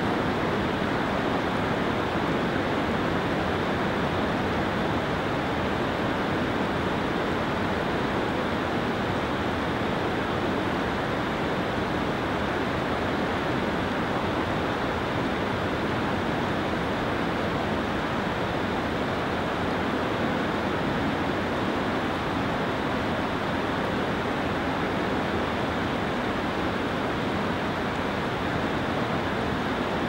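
Whitewater rapids rushing over and between granite boulders in a mountain stream at heavy flow: a steady, even rushing of water with no change in level.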